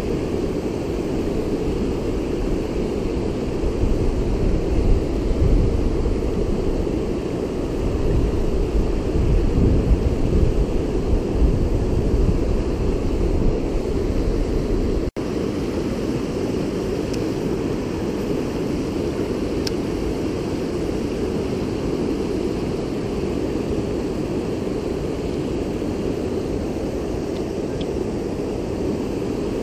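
Steady rush of high, fast creek water spilling over a low dam, with deeper swells in the first half. The sound cuts out for an instant about halfway.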